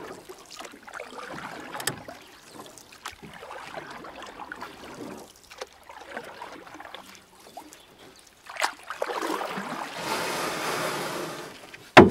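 Water splashing and lapping, with a louder steady rush of water from about two-thirds of the way in and a sharp knock at the very end.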